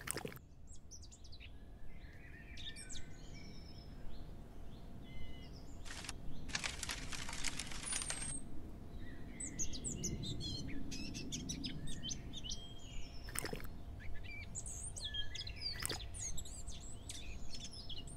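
Birds chirping and singing over a steady low background rumble, with a brief burst of hiss about six and a half seconds in and a few sharp clicks.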